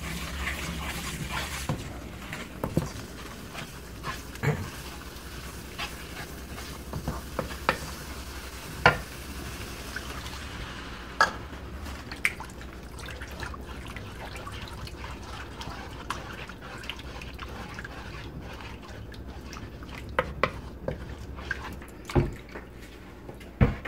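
Roux of butter and flour sizzling in a nonstick pan while a wooden spoon stirs it, knocking against the pan now and then. About ten seconds in the sizzle dies away as milk goes in, leaving the spoon scraping and tapping through the white sauce.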